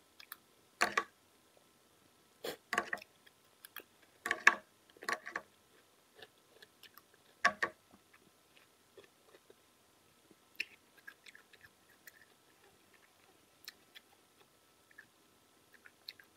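Crunching of raw cucumber being bitten and chewed close up: a run of crisp, crackling crunches over the first several seconds, then only faint mouth clicks as the chewing quiets.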